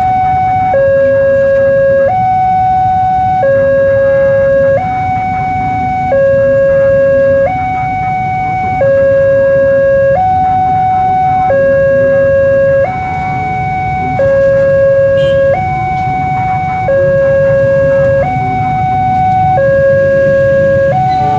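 Railway level-crossing warning alarm: an electronic two-tone signal alternating steadily between a lower and a higher tone, each held for a little over a second. It sounds while the barrier is down and a train is approaching.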